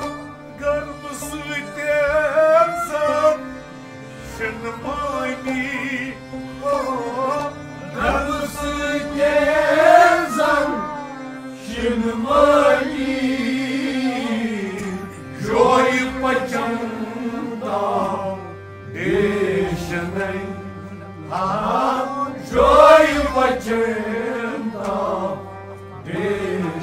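A man singing a Kashmiri song in long, bending melodic phrases, with instrumental accompaniment holding steady low notes underneath.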